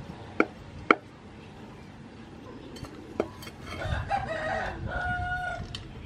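Two sharp chops of a cleaver on a thick wooden chopping board, about half a second apart, then another knock on the board about three seconds in. A rooster crows for about two seconds in the second half.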